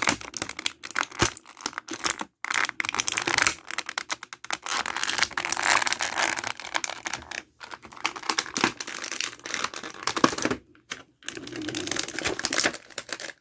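Plastic and cardboard action-figure packaging being handled and crinkled by hand, with a dense, irregular run of small clicks and crackles.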